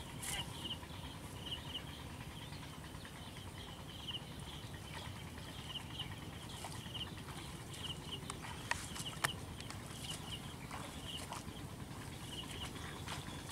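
Outdoor field ambience: a small animal chirping over and over in quick groups of two or three, over a low rumble of wind. Two sharp clicks come about nine seconds in.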